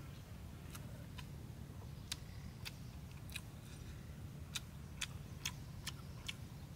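Sharp, irregular clicks and crackles as fingers pick flesh off a charred grilled pangasius fish and handle rice on a banana leaf, about ten in all, over a steady low rumble.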